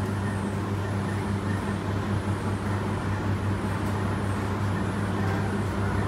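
Commercial tumble dryers running: a steady low hum.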